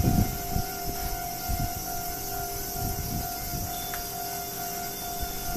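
Japanese electronic level-crossing warning bell ringing with a steady tone, with irregular low rumbles underneath.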